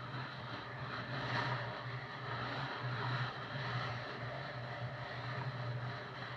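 Motorcycle riding at a steady cruise: a constant low engine hum under wind and road noise on the microphone.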